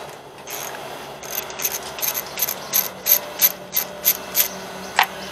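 Socket ratchet wrench clicking in a steady rhythm, about three clicks a second, as a 10 mm bolt holding the mower's cowl is backed out, then one sharper metallic click near the end.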